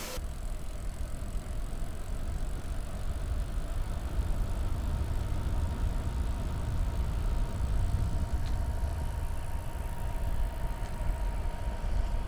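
Wind buffeting the microphone of a moving recumbent trike, heard as a low, uneven rumble, with road noise under it and a faint steady whine.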